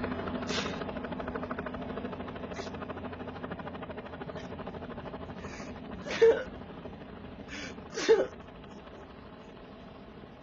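A young man crying, with two loud gasping sobs about six and eight seconds in and fainter sniffing breaths between them, over a low steady hum that fades away.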